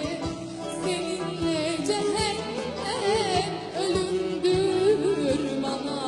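Live Turkish band music with a female singer: an ornamented melody with wavering pitch bends over percussion.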